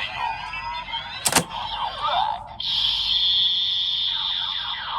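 Bandai CSM Decade Driver Ver.2 toy transformation belt playing a rider card's electronic sound effect through its speaker: swirling, sweeping synth glides with a sharp hit about a second in, then a steady high tone held for the last couple of seconds.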